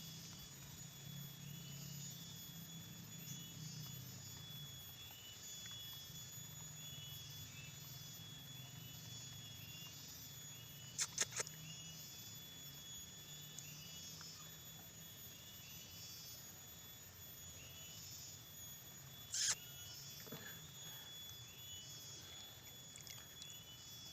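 A steady outdoor chorus of calling wildlife: thin high continuous tones with a short chirp repeating about once or twice a second. About halfway through come three quick sharp clicks, and a single click follows some seconds later.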